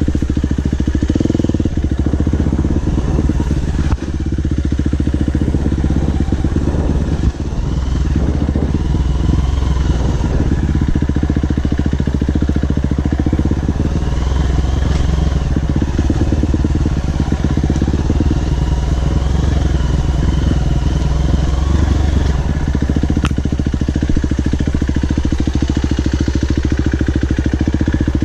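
Off-road motorcycle engine running at steady low revs on a downhill trail, with a few brief knocks and rattles from the bike over rough ground.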